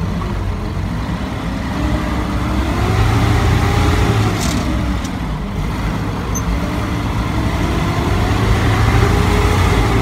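Large truck's engine heard from inside the cab, pulling away in gear: the revs climb, drop about halfway through at a gear change, then climb again and fall near the end. A couple of short clacks come around the gear change.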